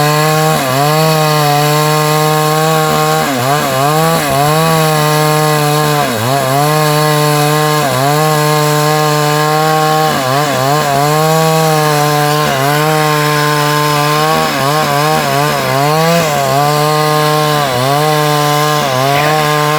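Two-stroke chainsaw running at high revs while cutting through wood. Its engine note dips briefly every second or two as the chain bites and bogs under load, then climbs back up.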